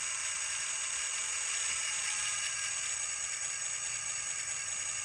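XL Systems sound decoder in an N scale Atlas GP38-2 playing its GE-style diesel prime-mover sound through the locomotive's tiny speaker, running at a steady idle. The sound is thin, with little bass.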